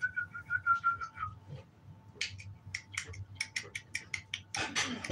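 A thin, high, slightly falling whine for about the first second. Then a quick run of clicks and scratches from American bully puppies scrambling on the puppy pads in their wire pen, with a louder scuffle near the end.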